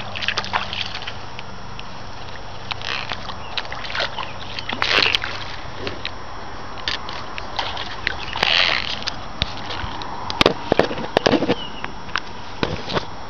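Footsteps splashing and sloshing through shallow muddy water, one step every few seconds. Near the end comes a quick cluster of sharp clicks and knocks.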